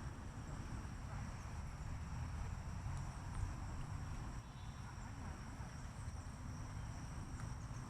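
Insects trilling steadily at two high pitches over a continuous low rumble, with faint distant voices.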